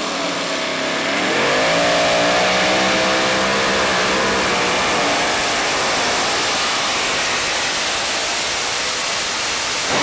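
Supercharged engine of a two-wheel-drive pulling truck at full throttle under the load of a weight-transfer sled. The revs climb about a second in, waver, then hold high and steady.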